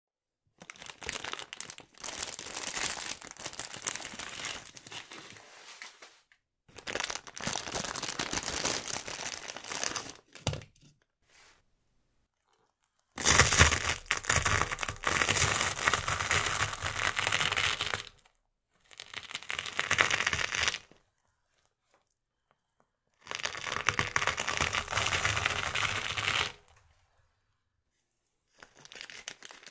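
Bicycle tyre rolling over and crushing dry instant-noodle blocks: repeated bouts of crunching and crackling a few seconds each, with short silences between, the loudest about halfway through. Near the end, plastic packets crinkle as they are handled.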